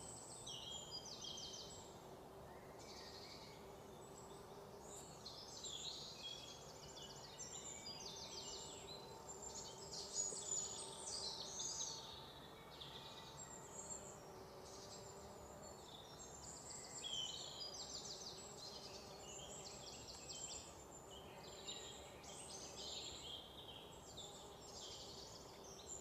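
Several small birds chirping and singing at once, with quick high chirps and rapid trills overlapping throughout, over a faint steady outdoor background.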